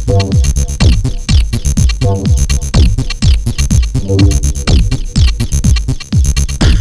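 Electronic dance music with a drum-machine beat: deep bass drum hits over fast, busy hi-hat clicks, with synth notes that repeatedly sweep down in pitch.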